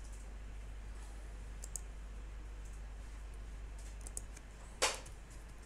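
A few faint clicks from a computer mouse and keyboard, with one louder, sharp click near the end, over a steady low hum.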